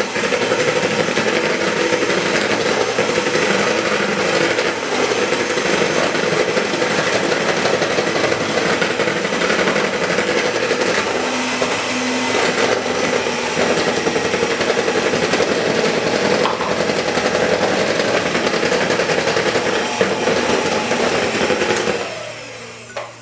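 Electric hand mixer running steadily with its beaters in cake batter in a plastic bowl, switched off near the end.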